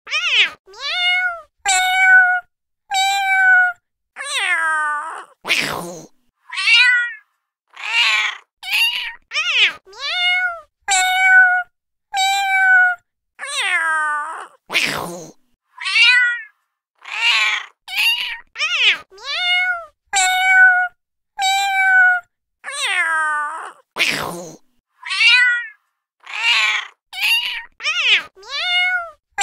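Domestic cat meowing over and over, short and drawn-out calls about one to two a second with clean silence between them, some falling in pitch. About every nine seconds comes a short harsh, raspy call, and the same run of calls repeats about three times.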